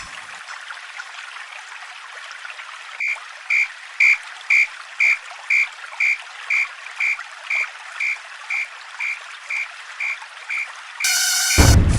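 Railway level-crossing warning bell ringing in an even beat of about two strokes a second over a steady hiss. The bell starts about three seconds in and slowly fades. Near the end a loud sound with several tones and a deep rumble cuts in.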